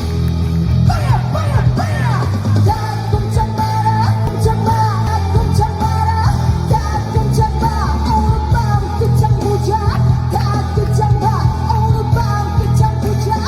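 Live pop song played loud through a PA: a female singer sings over a backing track with a heavy bass beat, and a high sustained tone runs through most of it from about two seconds in.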